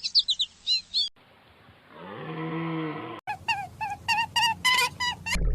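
Several bird calls cut one after another. First come sharp high chirps. After a short gap there is a single low, drawn-out call of about a second, then a quick run of about ten short repeated squawking calls, several a second.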